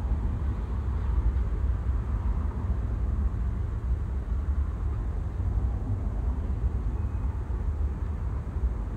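A freight train running past with a steady low rumble.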